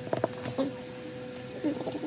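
Plastic sleeve pages of a ring binder handled and turned, giving a few light clicks and rustles early on, over a steady faint hum. A short low wavering sound follows near the end.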